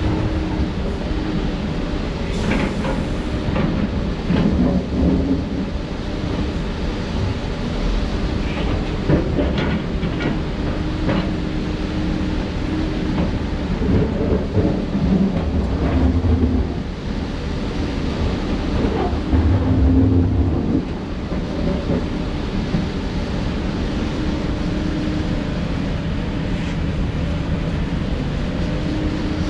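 Heavy diesel earthmoving machinery running at a steady rumble, with repeated clanks and scrapes of rock and steel, mostly in the first half, and two louder surges of engine load near the middle.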